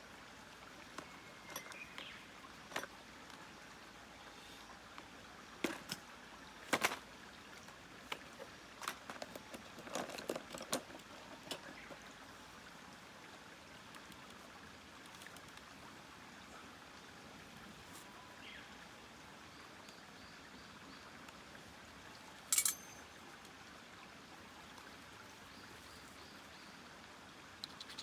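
Wood snapping and crackling: scattered sharp pops over a steady low hiss, bunched in the first dozen seconds, with one loud snap about 22 seconds in.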